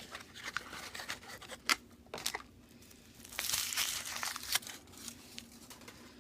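A chocolate surprise egg's wrapper being crinkled and torn open by hand, with scattered crackles and a longer burst of crinkling about three and a half seconds in.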